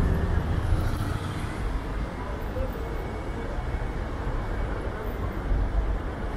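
Busy city street ambience: steady road traffic noise with a heavy low rumble.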